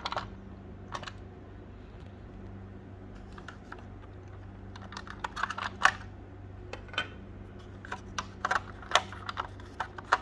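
Irregular sharp clicks and taps of hard plastic from a WPL C24 RC car's plastic body and panels being handled, lifted and pressed. The clicks come in clusters, and the loudest is about six seconds in. A steady low hum runs underneath.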